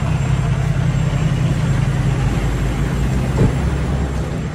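Heavy recovery truck's diesel engine running steadily with its power take-off engaged, with a short knock about three and a half seconds in.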